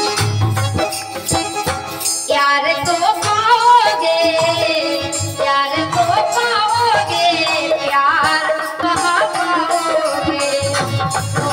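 Instrumental interlude of a live ghazal band: a wavering lead melody over a steady drum beat with rattling percussion.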